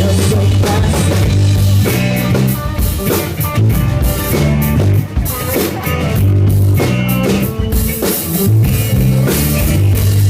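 Live band playing a rock-pop song during a sound check: drum kit and guitar over a heavy, steady bass line.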